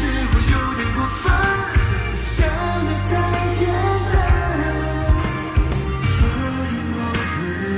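Chinese-language pop song: a lead singing voice over a steady drum beat and heavy bass.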